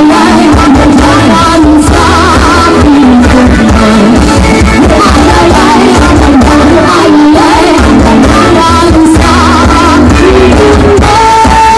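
Live band music with a singer over a concert PA, loud and steady, with strong bass.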